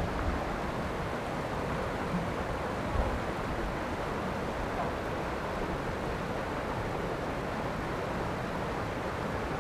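Mountain river water rushing steadily over shallow stony riffles, with a brief low bump about three seconds in.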